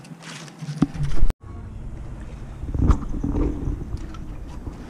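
Wind rumbling on the microphone outdoors, with a few knocks and bumps. A loud bump comes about a second in, just before the sound drops out for an instant.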